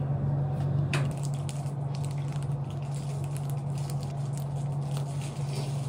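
Clear plastic bag crinkling and bites being taken from a croffle held in it, many small crackles that start about a second in, over a steady low room hum.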